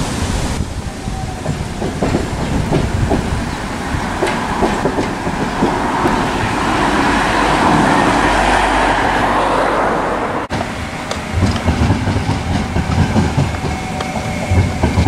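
CAF Urbos trams rolling past on the track, wheels clattering over the rails. A swell of rolling noise as a tram passes close about halfway through, and after a break near 10 seconds a run of irregular wheel knocks.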